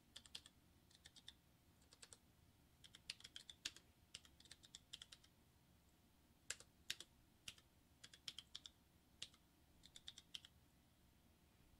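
Computer keyboard being typed on, faint, in short runs of keystrokes with pauses between them, as a command is entered at a Linux console.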